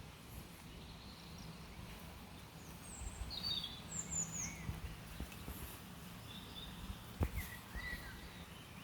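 Outdoor ambience with small songbirds calling: short high chirps and quick falling notes, clustered a few seconds in and again near the end. They sit over a low rumble, with a single knock about seven seconds in.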